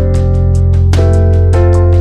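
Background music: a steady beat with plucked guitar notes over a held bass.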